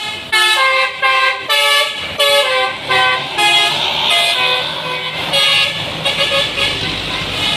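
Bus telolet horn, a multi-note musical air horn, playing a melody of short notes that jump in pitch, about ten notes that die away near the end. Engine and road noise from the passing bus runs underneath.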